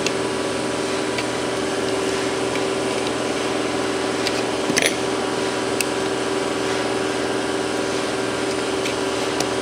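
Steady hum of a running motor, with a few small clicks and scrapes of a metal file prying at the plastic tabs of a smoke detector base, the clearest about five seconds in.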